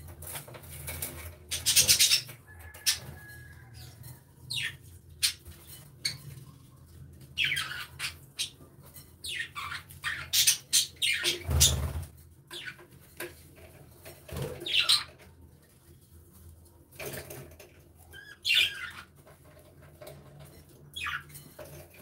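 A flock of budgerigars chirping and squawking in short, scattered calls that slide in pitch, with wings flapping as birds fly between perches. The loudest bursts come about two seconds in and near the middle.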